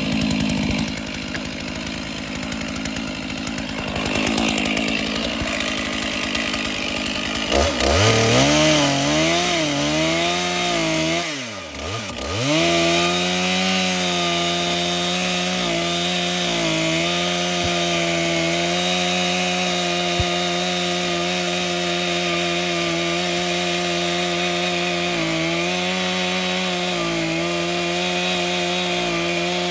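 Stihl MS 881 two-stroke chainsaw running an Alaskan mill through a log. The engine revs up about a quarter of the way in and wavers. It dips sharply and recovers, then runs at a steady high pitch under load as it cuts.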